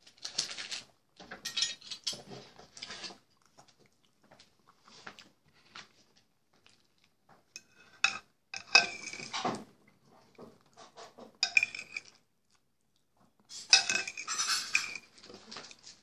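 Metal fork scraping and clinking against a ceramic bowl in irregular bursts as food is scooped up. The loudest clatter comes about nine seconds in and again near the end.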